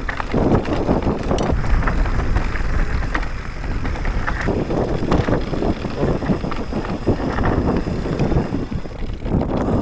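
YT Decoy MX electric mountain bike riding fast over rough, rocky trail: tyres crunching and the bike rattling and knocking over the rocks, with wind buffeting the microphone.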